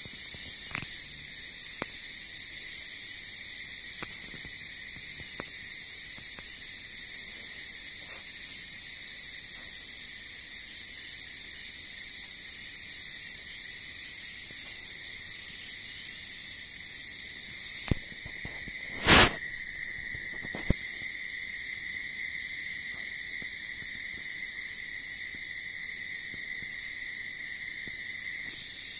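A steady, high-pitched chorus of night insects trilling. It is broken by a few faint clicks and one short, louder noise about two-thirds of the way through.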